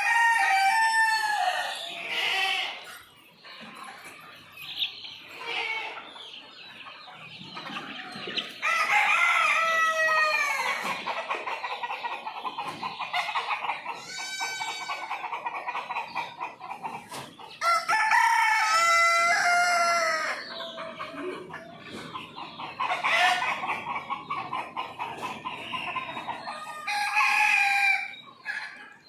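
Roosters crowing again and again, each crow a drawn-out call lasting a second or two, over continuous clucking from a flock of chickens.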